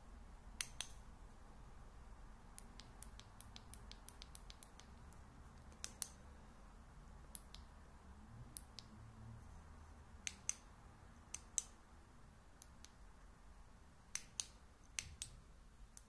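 Scattered small, sharp clicks and taps, irregularly spaced, from hands handling an aluminium LED flashlight.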